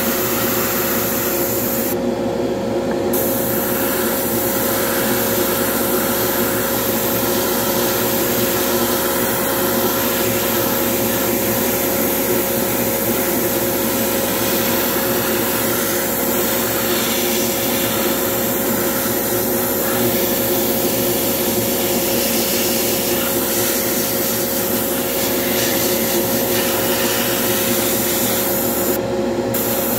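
Hobby spray booth's exhaust fan running with a steady hum, under the hiss of an airbrush spraying black paint. The hiss breaks off briefly twice, once about two seconds in and again near the end.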